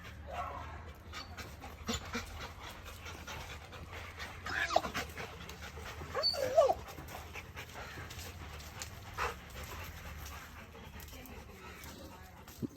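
A dog whining in a few short, bending calls, one about five seconds in and a cluster around six and a half seconds, over a low steady hum.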